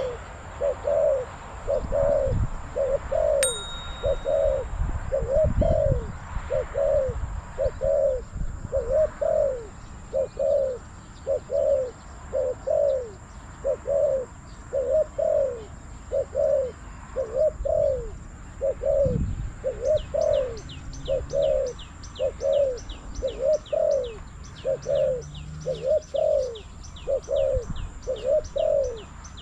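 Spotted dove cooing over and over in a steady series of low coos, the calling of a decoy set out to lure a wild dove. From about two-thirds of the way in, a fast run of high, thin ticks, about three a second, sounds over the cooing.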